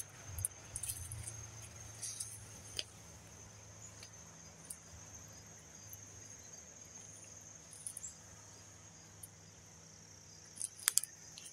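Steady high-pitched chorus of insects in the woods, with scattered crunches and snaps of footsteps on twigs and flood debris, a few sharper ones near the end.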